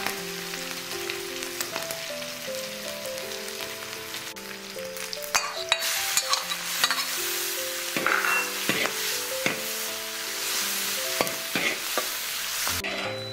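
Sliced cured pork sizzling in hot fat in a wok. About five seconds in, the sizzle grows louder and brighter as chilli, ginger and garlic go into the pan, then the metal spatula clicks and scrapes against the wok as it is stir-fried.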